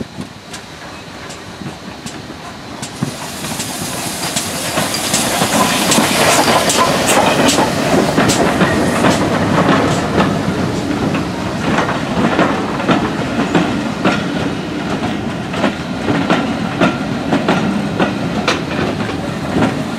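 A steam-hauled passenger train passing close by. It gets louder over the first several seconds, with a hiss as the locomotive goes past. Then the coaches roll by with a steady clickety-clack of wheels over the rail joints.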